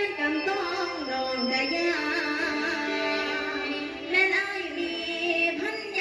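A young woman singing a song into a handheld microphone, with ornamented held notes that waver in pitch.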